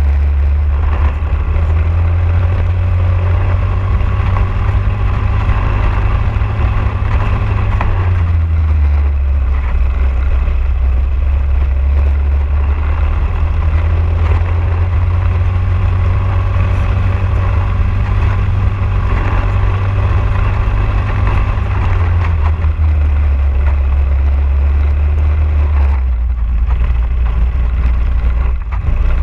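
Briggs & Stratton LO206 single-cylinder four-stroke kart engine running hard at racing speed, heard onboard. Its note drops away about eight seconds in and again near the end, then climbs back.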